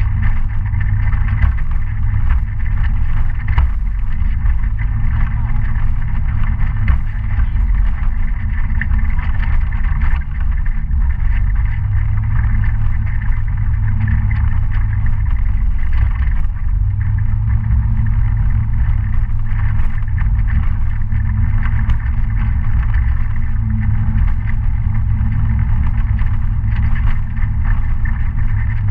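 Citycom S 300i scooter's single-cylinder engine running steadily under way on a dirt road, with a heavy low rumble and a few sharp clicks.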